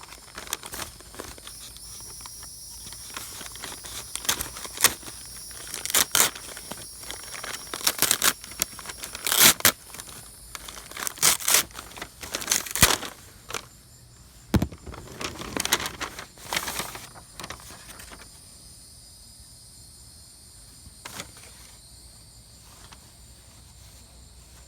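A mailing package being cut and torn open by hand, with bursts of tearing and crinkling packaging through the first two-thirds, then quieter handling. Crickets chirp steadily throughout.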